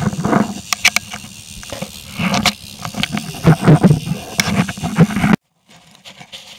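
Irregular knocks and bumps of a hand-held camera being moved around aboard a small fiberglass boat, over a rough rumble of wind and water. The sound cuts off abruptly a little after five seconds in and comes back much quieter.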